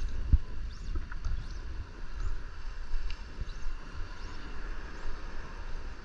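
Water sloshing and lapping around a wader's legs in shallow surf, with wind rumbling on the microphone and a few faint, short high chirps now and then.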